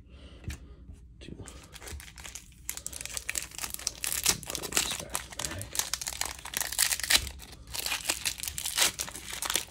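Foil trading-card pack wrapper being crinkled and torn open by hand: a dense run of crackling that starts about a second and a half in.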